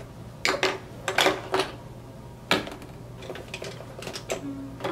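Makeup containers (foundation, primer and concealer bottles and tubes) being picked up and set down on a tabletop, giving a series of irregular sharp clacks and knocks.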